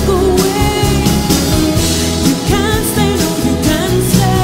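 Live pop-rock band music: a woman singing over electric guitar, bass and drums at a steady beat.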